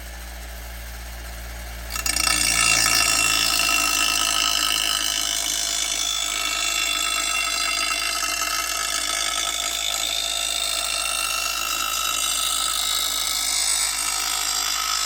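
Bench grinder running, then from about two seconds in a steel Exmark mower blade is pressed against the grinding wheel in a sharpening pass. This gives a loud, steady grinding hiss with high ringing tones.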